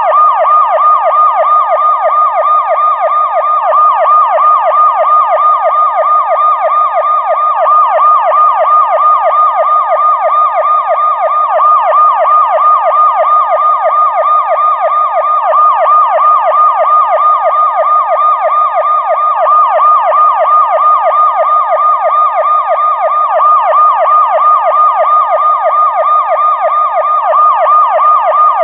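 Police car siren sounding continuously in a fast yelp, its pitch sweeping up and down about three times a second, steady and unchanging throughout.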